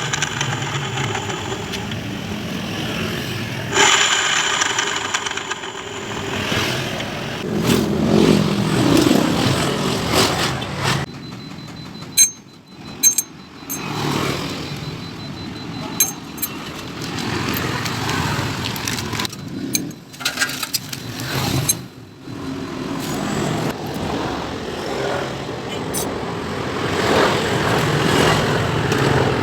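Automatic scooter engine and CVT running, with uneven, rough mechanical noise that rises and falls and breaks off abruptly a few times. This is the rough, odd CVT noise that the uploader puts down to a worn secondary (driven) pulley bearing.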